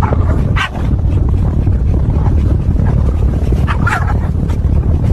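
Loud, steady low rumble of a moving truck with wind buffeting. Two short, sharper sounds cut through it, one about half a second in and one near four seconds.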